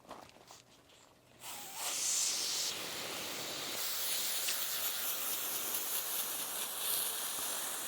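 A steady hissing noise starts about a second and a half in and runs on evenly.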